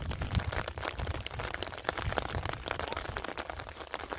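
Rain falling, heard as dense, irregular small drop hits over a steady hiss, with a low rumble underneath that eases off near the end.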